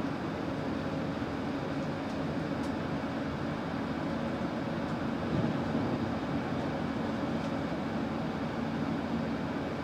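Inside a Solaris Urbino 18 articulated city bus on the move: steady engine drone with road and tyre noise, and a brief louder bump about halfway through.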